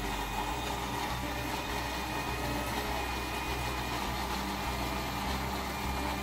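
Countertop electric blender running steadily, its motor whirring as it blends apple, soaked oats, chia and flax seeds with water.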